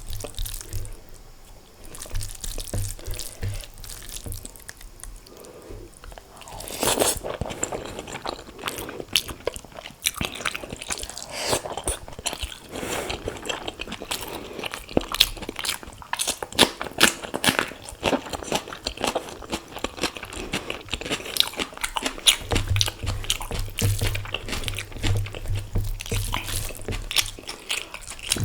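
Close-miked chewing, smacking and mouth sounds of someone eating egg curry with rice, with crunchy bites mixed in.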